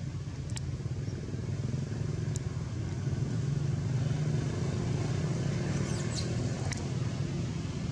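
Low steady engine hum of a motor vehicle, growing louder through the middle and easing off near the end, with a few faint high chirps.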